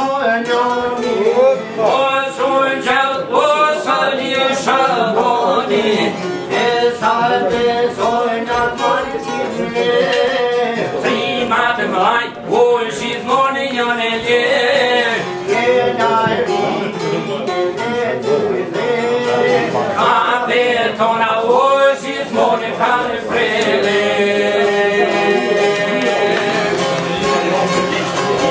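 Live Albanian folk music: a man sings over long-necked plucked lutes, çifteli and sharki. About three quarters of the way through the singing stops and the strings play on alone.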